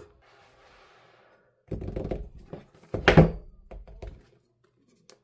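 Handling noises on the AirPods Pro 2 box: a few dull knocks, then a loud thunk about three seconds in, followed by smaller knocks.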